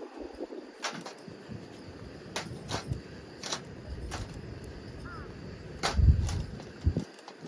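Burning firewood crackling: about six sharp, separate pops spread over several seconds. A louder low rumble comes about six seconds in.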